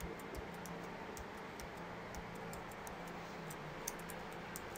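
Faint, irregular clicking of computer keyboard keys as text is typed, over a faint low steady hum.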